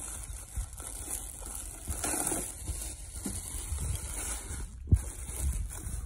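Handling noise as the unboxed stick welder and its packaging are turned over and rubbed, with one sharp knock about five seconds in.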